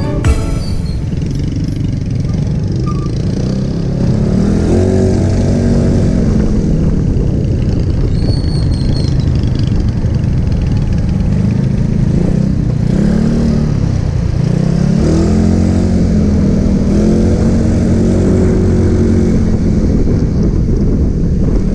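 Motorcycle engine running while riding, its pitch climbing and dropping several times as the rider accelerates, shifts and eases off.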